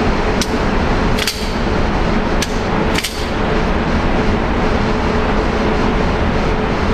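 Four 9mm pistol shots from a Glock 26, unevenly spaced within about three seconds, over a steady loud rushing noise.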